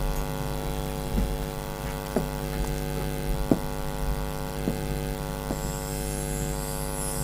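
Steady electrical mains hum with a stack of even overtones, with a few faint ticks scattered through it.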